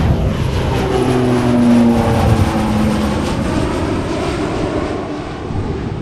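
Cessna SkyCourier twin turboprop (Pratt & Whitney PT6A engines) flying past low. Its propeller and engine drone drops in pitch as it goes by, then eases off.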